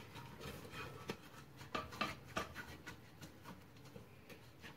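Faint rubbing of fingers and a silicone brush spreading oil around the inside of a metal pot, with scattered soft taps and scrapes against the metal.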